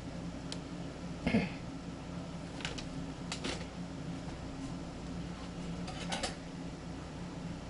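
A steady low hum runs throughout, with a few short knocks and clicks on top. The loudest comes about a second in, and there are small clusters near the middle and just after six seconds.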